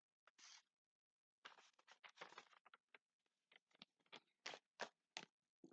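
Sheets of printed paper rustling and crinkling as they are handled and shuffled: faint, in short irregular bursts, with a denser stretch about a second and a half in and scattered crackles near the end.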